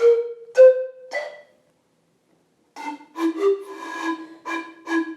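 Handmade ceramic antara (clay panpipe) blown in short breathy notes: three notes stepping upward in pitch, a short pause, then a quicker run of many short notes mostly on one lower pitch with an occasional higher one.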